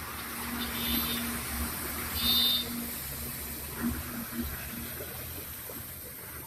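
Loaded goods truck driving away on a wet road: a steady engine hum and tyre hiss that fade as it recedes, with two short high squeals about one and two seconds in.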